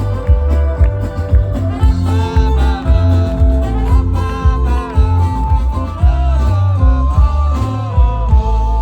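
A band playing an instrumental passage of a folk-rock song: a held, bending lead melody over guitar, bass and a steady drum beat.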